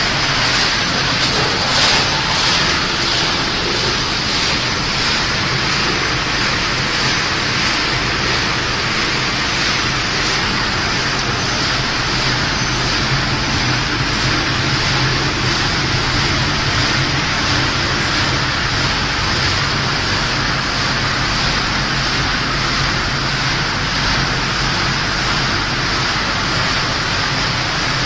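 Snack-food production line machinery running steadily: a constant hiss with a faint low hum underneath, from the conveyors, motors and fans moving puffed cheese balls. A brief knock about two seconds in.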